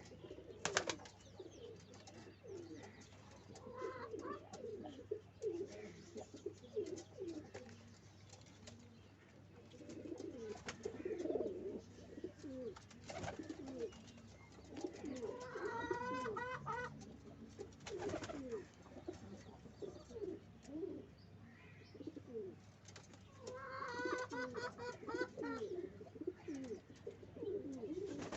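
Pigeons cooing over and over in low, wavering calls. Higher-pitched chirping calls come in twice, a little past halfway and again near the end, with a few sharp clicks between.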